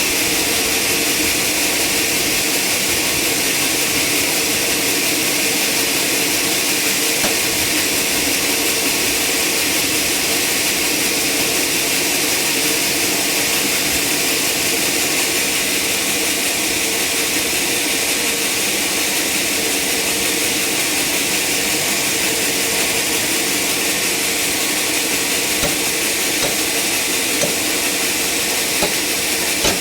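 Sawmill machinery running steadily: a constant whine over a continuous hiss, with a few faint knocks near the end.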